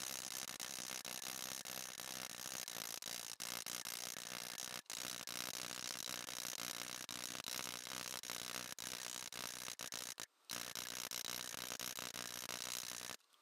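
Hammer blows on a thin fine silver cup held over a steel stake during raising, sped up so the strikes run together into a fast, ratchet-like clicking, with brief breaks about five and ten seconds in and near the end.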